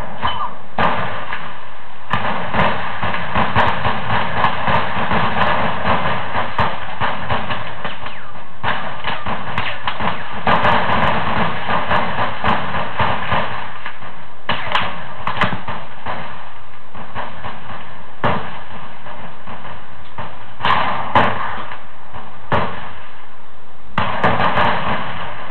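Old war-film sound track: a constant dense, noisy rumble with frequent sharp bangs and knocks scattered through it.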